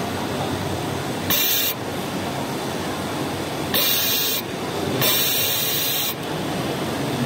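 Seamless-underwear tape bonding machine running with a steady mechanical hum, broken by three short bursts of air hiss from its pneumatic cylinders: about a second in, near four seconds, and a longer one around five seconds.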